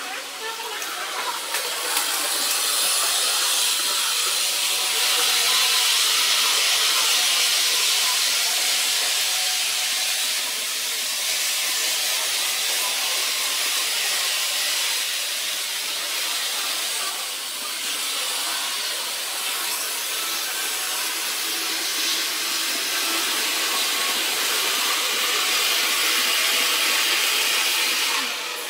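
Model railway trains running on the layout's tracks: a steady hiss of wheels rolling on rail with a faint motor whine, swelling about two seconds in.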